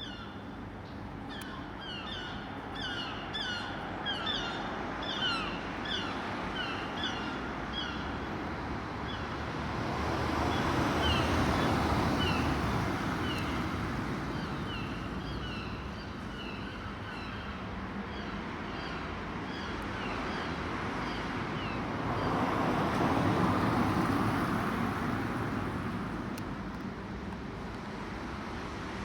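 A bird calling over and over in short falling chirps, about two a second, for most of the stretch before it stops. Underneath is a steady outdoor rushing noise that swells louder twice.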